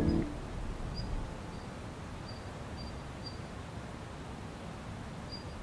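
Music cuts off just after the start, leaving quiet outdoor ambience: a steady soft hiss with a small bird giving short, high chirps at uneven intervals.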